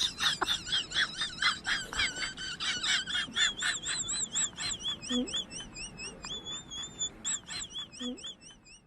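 Baby birds peeping: rapid, high-pitched wavering peeps, about three or four a second. Several overlap at first, then they thin to a single steady series.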